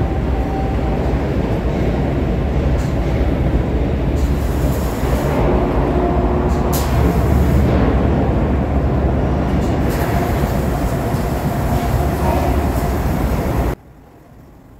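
Flux-cored arc welding: the arc runs steadily and loud as a bead is laid, then stops suddenly near the end.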